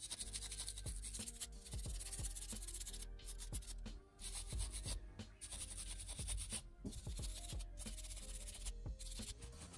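Toothbrush bristles scrubbing a small metal fountain-pen part: a dry, hissy scratching in runs of strokes broken by short pauses, over background music.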